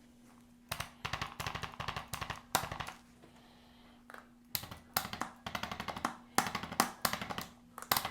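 Handheld percussive vibration device pulsing against a patient's back in short bursts of rapid taps, more than a dozen a second, with brief pauses between bursts. A faint steady hum runs underneath.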